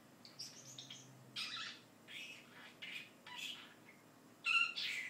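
Pet talking bird chattering: a string of short, high-pitched, squeaky sounds coming every half second or so, the loudest near the end.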